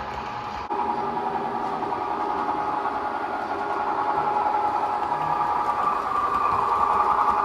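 Model F7 A-B diesel locomotive pair pulling passenger coaches along layout track: a steady running hum and whine, growing louder toward the end as the train comes closer. The sound changes abruptly about a second in.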